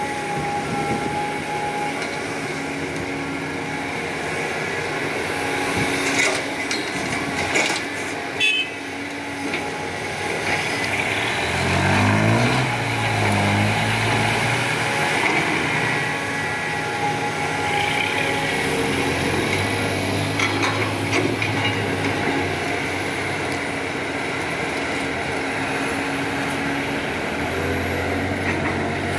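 CAT 320D hydraulic excavator's diesel engine running steadily while digging and loading soil into a dump truck, with a few sharp knocks about a quarter of the way in. Around twelve seconds in an engine revs up, rising in pitch, before settling back to a steady run.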